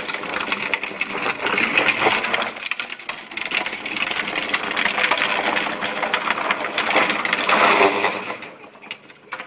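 Hard plastic wheels of a Green Machine drift trike grinding and scraping over asphalt as it is ridden and slid through turns, swelling several times and fading near the end as it moves away.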